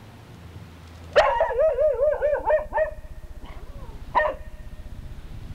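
Small dog giving a loud, wavering howl-like bark for nearly two seconds, its pitch wobbling up and down, then one short sharp bark.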